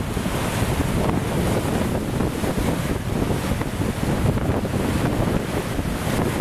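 Strong wind buffeting the microphone over the steady rush of storm-surge waves breaking and washing across a seafront walkway during a severe tropical cyclone.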